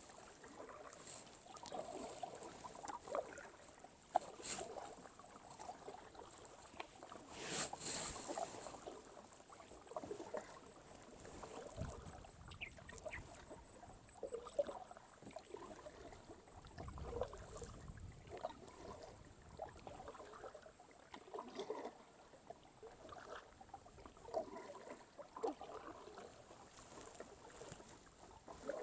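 Kayak paddle strokes dipping and splashing faintly in calm water, irregularly, with a few sharp knocks.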